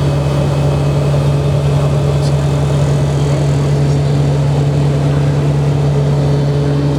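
Steady drone of the Royal Turbine Duke's Pratt & Whitney PT6 turboprop engines and propellers in cruise flight, a constant low hum with no change in pitch or level.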